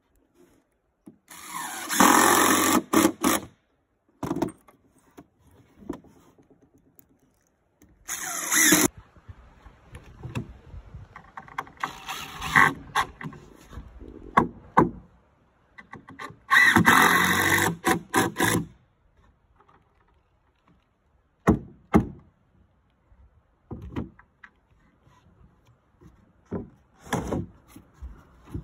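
DeWalt 20V cordless driver driving screws into wooden floor boards, in three runs of a second or two each, the last the longest. Between the runs come lighter knocks and rubbing of the boards being handled.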